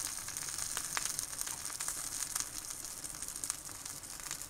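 Steady sizzling hiss with scattered small crackles and pops.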